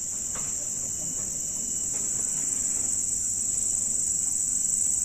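Dense insect chorus: a steady, high-pitched shrill buzz that grows slightly louder.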